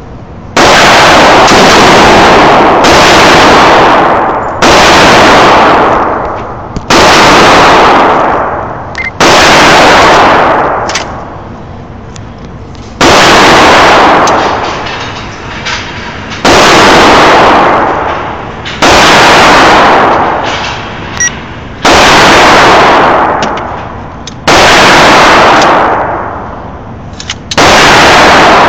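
Smith & Wesson M&P15 AR-15 rifle fired in slow single shots inside an indoor range: about eleven very loud shots, two to three seconds apart, each overloading the recording and trailing off in a long echo.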